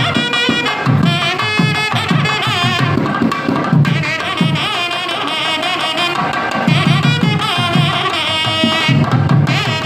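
Nadaswaram playing a melody full of bending, gliding ornaments over repeated drum strokes.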